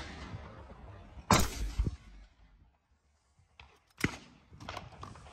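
A single shotgun shot about a second in, sharp and ringing out briefly. Near the end, a sharp click and a few lighter clicks and rattles as the shotgun is opened after the shot.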